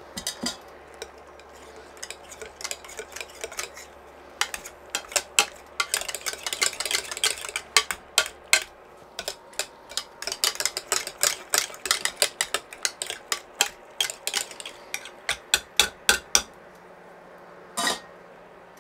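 A wire potato masher stirring and beating mashed potatoes in a stainless steel saucepan, its metal wire clinking and knocking against the pan in a quick, irregular run of strikes. The strikes thin out and stop a couple of seconds before the end.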